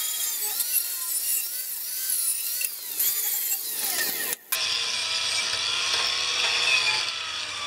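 Handheld power tool scrubbing rust off cut steel flat stock clamped in a vise, with a harsh hiss and a motor whine that wavers as it is pressed on. The whine winds down about three seconds in and breaks off for a moment just after four seconds, then the grinding goes on.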